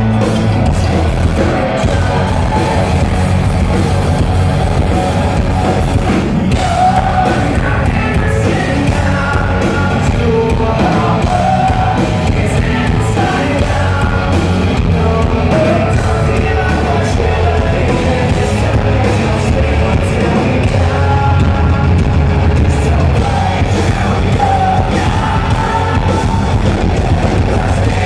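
Live rock band playing loud: electric guitar, bass guitar and drums, with a lead vocal sung over them from a few seconds in, heard from the crowd in a large hall.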